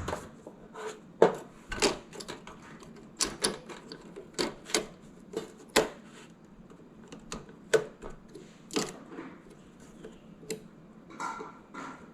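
Irregular light clicks and taps, about twenty of them with uneven gaps, from small plastic and metal parts of a graphics card's fan shroud being handled and fitted together.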